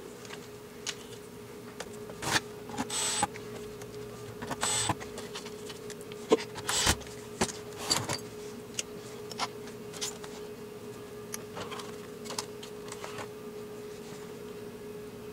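Plastic casing of a Philips under-cabinet CD player being handled and turned over on a workbench: scattered knocks and clicks, the loudest about seven seconds in, with a few brief whirring bursts, over a steady faint hum.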